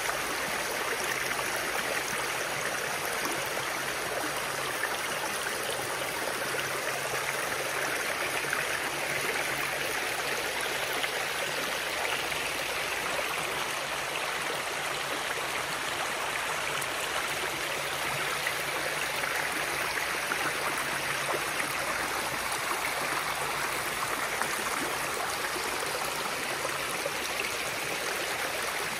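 Shallow rocky stream flowing over stones: a steady, even rush of running water.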